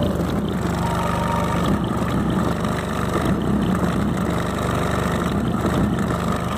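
Car-audio subwoofers playing loud, continuous deep bass, a heavy, steady low rumble with little else above it.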